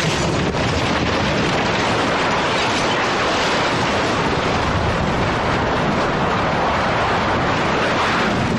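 A loud, steady rushing noise with a low rumble underneath, unbroken throughout.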